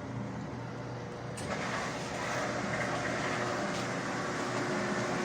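Samsung DV50K8600EV/A3 dryer running on its newly replaced idler pulley and belt: a steady hum of the turning drum and blower fan with a few constant tones. It gets louder and brighter about a second and a half in.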